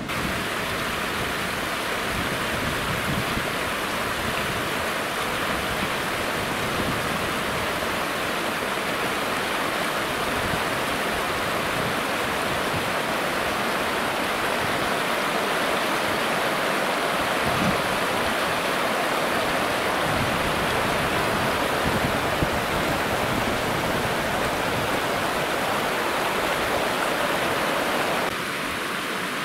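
Rushing water: a steady, even rush of falling or fast-flowing water, turning slightly quieter near the end.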